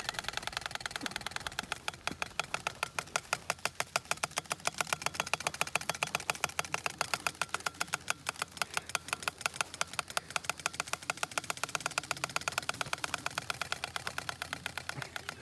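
Stiff flaps fixed on the front fork and rear frame of a kids' Strider balance bike, slapping against the turning spokes of both wheels in a rapid, even clatter. It is the old clothespin-and-playing-card trick, meant to sound like a motorcycle engine.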